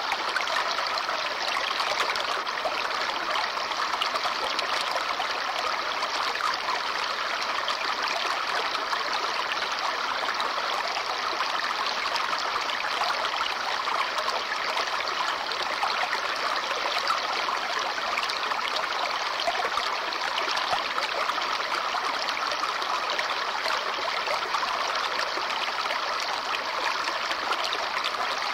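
A babbling brook running steadily, an even rush of water with fine trickling splashes.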